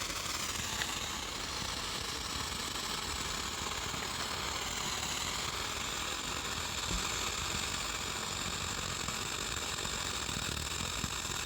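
Handheld firework burning, a steady hissing crackle of spraying sparks.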